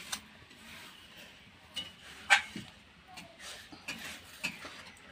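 A hand scooping coarsely ground roasted spices off a grinding stone into a steel bowl: faint scraping with a few sharp clinks on the bowl, the loudest about two seconds in.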